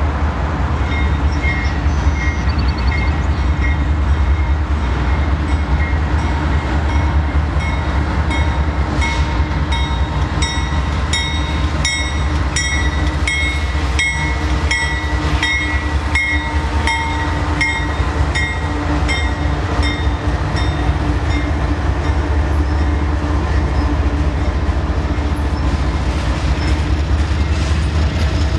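A long diesel freight train passing close by: first the deep, steady rumble of the Canadian Pacific GE AC44CW and Union Pacific lead locomotives, then the rolling rumble of tank cars on the rails. Through the first two-thirds, short high ringing notes repeat a little under twice a second, then fade out.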